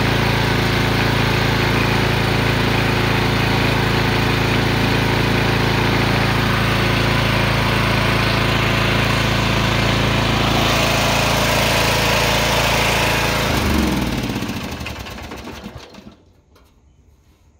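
Lawn mower engine running steadily, then losing speed about fourteen seconds in and winding down to a stop over a couple of seconds. It is stalling the way the owner describes, as if it has run out of gas, as it pours out white smoke.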